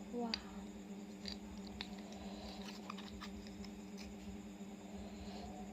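Faint eating sounds: scattered small clicks and taps, with a brief louder sound just after the start, over a steady low hum.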